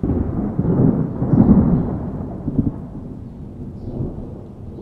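Thunder rumbling: a long, deep roll that swells to its loudest a second or two in, then slowly dies away.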